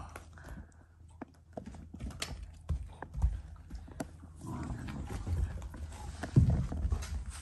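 A Shiba Inu and a black Labrador puppy scuffling over an ice cube on a floor mat: scattered clicks and knocks of paws, teeth and ice, with short low dog grumbles a little past the middle and a louder knock about six seconds in.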